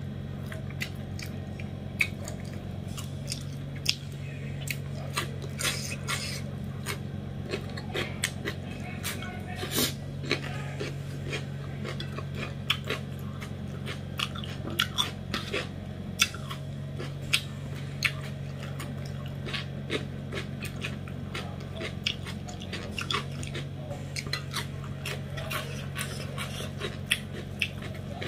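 A person chewing and biting mouthfuls of rice and fish curry eaten by hand, with many small sharp, wet mouth clicks. A steady low hum runs underneath.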